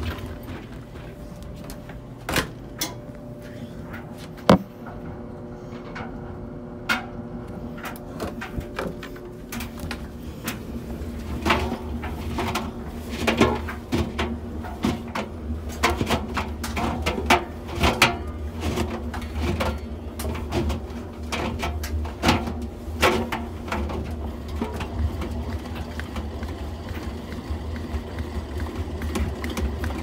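Front-loading washing machine's stainless steel drum being spun by hand with a single towel inside, turning with a low rumble and irregular clicks and knocks. The clicks come thicker and the rumble stronger after about ten seconds.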